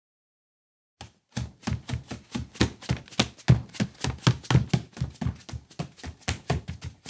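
Bare feet slapping on the ground in quick steps, about five impacts a second, starting about a second in.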